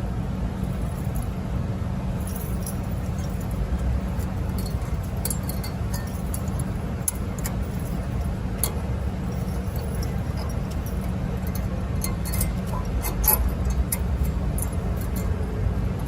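Light metallic clicks and clinks of brake pads and their spring-steel hardware clips being handled and refitted in the caliper bracket, scattered and more frequent in the last few seconds, over a steady low background rumble.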